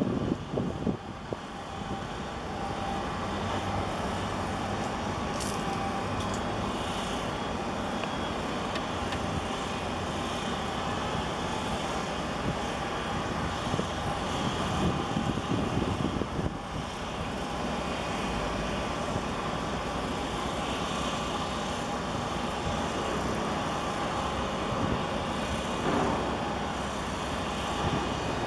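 Steady mechanical drone of a 14,500 TEU container ship's engines and machinery as it passes close by, a low rumble with a few faint steady whining tones above it.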